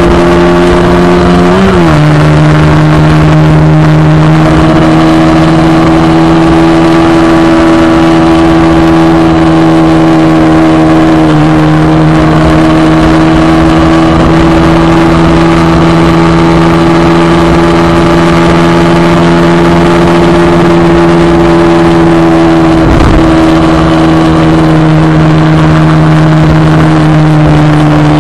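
Motorcycle engine running steadily under load on a climb, over rushing wind noise. Its pitch dips and settles lower about two seconds in, with a brief low thump-like smear near the end.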